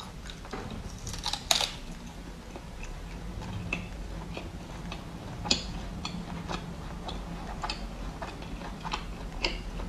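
Biting and chewing a piece of Chinese dried sausage: irregular faint clicks and crunches of the mouth, with sharper bites about a second and a half in, around five and a half seconds, and near the end.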